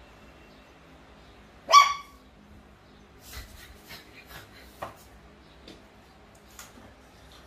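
A puppy gives one short, high-pitched bark about two seconds in, followed by a few faint taps.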